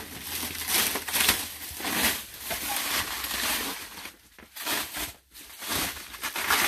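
Plastic shrink wrap on a pallet being pulled and torn by hand, crinkling and crackling, with two short lulls a little past the middle.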